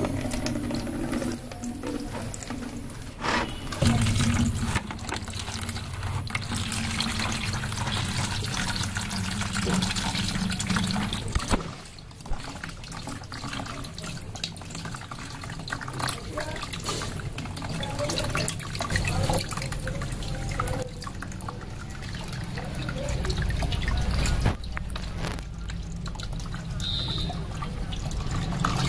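Thick soaked mustard oil-cake liquid poured from a clay pot through mosquito-net cloth into a plastic bucket, then the wet cloth bundle squeezed by hand so the strained liquid trickles and drips into the bucket.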